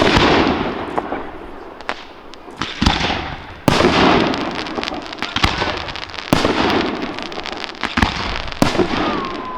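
Aerial fireworks bursting: a series of sharp bangs one to three seconds apart, each followed by crackling and hissing from the bursting stars.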